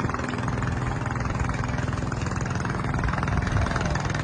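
An engine running steadily, an even motor sound with no change in speed.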